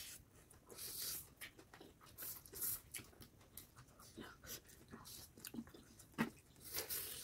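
Two people eating spicy chowmein noodles with forks: faint, scattered chewing, mouth smacks and noodle slurps, with small clicks.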